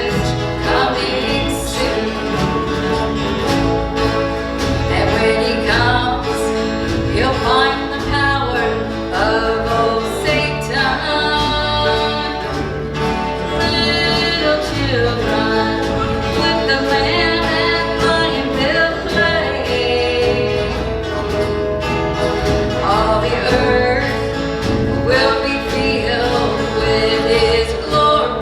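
A country-gospel worship song performed live: singing over a band with guitar and a steady bass line.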